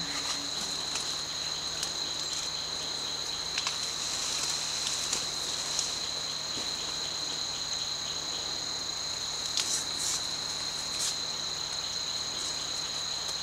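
Rainforest insects droning in a steady, unbroken high-pitched whine, with a few short crackles near the middle and toward the end.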